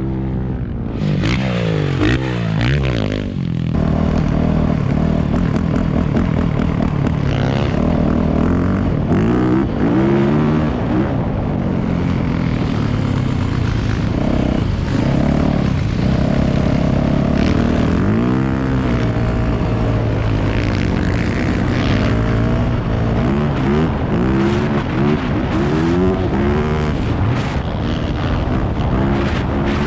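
Off-road vehicle engines revving on the dunes, their pitch rising and falling again and again as the throttle opens and closes and the vehicles pass.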